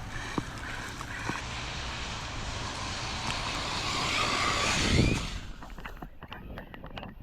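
Arrma Vorteks 3S RC car running across wet concrete, its motor and tyre hiss growing steadily louder for about five seconds to a heavy thud, then falling away to a few light clicks.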